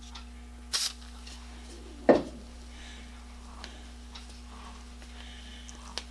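Metal hand tools handled on a workbench during hand tapping of threads: two sharp clinks about a second apart, the second the louder, then a few faint ticks.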